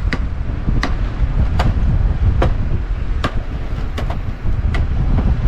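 A steady low rumble with a sharp knock about every three-quarters of a second, evenly spaced, seven times.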